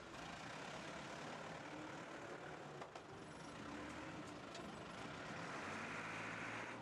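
Faint steady hum of forklift trucks and paper-roll handling machinery running, with a couple of light clicks.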